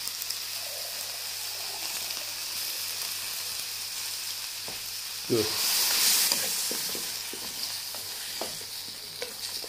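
Pork and banana-stem pith sizzling in a steel wok, a steady frying hiss that swells louder for about a second around five seconds in. Near the end a metal spoon stirs the food, clinking and scraping against the wok.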